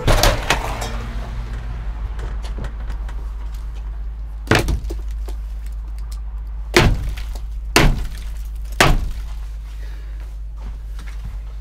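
A handful of sharp knocks and clatters, one at the start, one near the middle and three in quick succession later on, as a snowboard and boots are handled at a truck camper's doorstep, over a steady low rumble.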